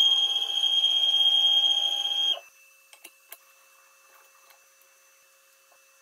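Stepper motors on a CNC router's ball-screw axis drive the spindle carriage, a steady high-pitched whine that cuts off suddenly about two and a half seconds in. A few light clicks follow.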